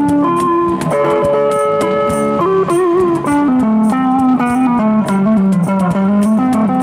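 Live instrumental jam on electric guitar and electric bass played through small amplifiers, with a melodic guitar line over the bass, kept in time by a cajon beat.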